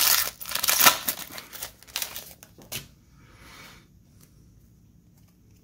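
Foil wrapper of a Panini Chronicles football card pack being torn open and crinkled by hand, a loud crackling rip lasting nearly three seconds. A brief faint rustle follows as the cards are slid out of the wrapper.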